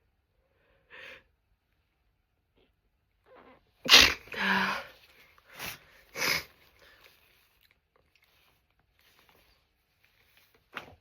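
A woman with a runny nose sneezing: a short breath in, then a loud sneeze about four seconds in, followed quickly by two more sneezes. A short sharp sound comes near the end.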